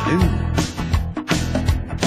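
Background music: a song with a steady beat, the singer's word trailing off just after the start, then the band playing on.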